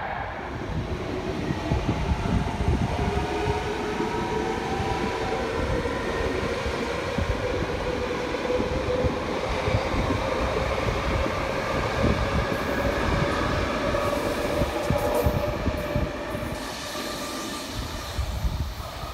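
Double-deck electric commuter train running past on the tracks, the whine of its traction motors gliding slowly in pitch over the rumble of the train.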